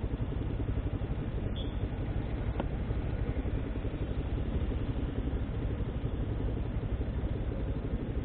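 Suzuki Hayabusa motorcycle on the move: a steady low rumble of engine and wind noise on the microphone.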